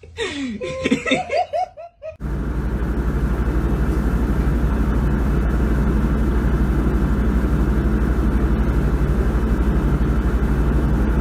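A cat purring loudly right at the microphone: a steady, rapidly pulsing low rumble that starts about two seconds in, after a moment of laughter.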